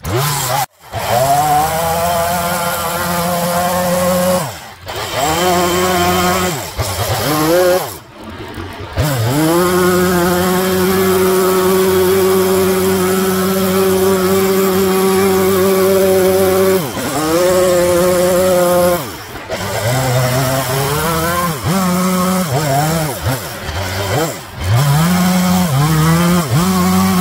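Echo CS-3510 two-stroke chainsaw carving into a wooden stump, its engine revving up and falling back again and again as the chain cuts. The sound breaks off briefly several times.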